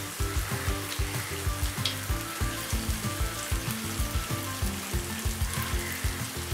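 Chopped vegetables sizzling as they fry in oil in a wok, a steady hiss.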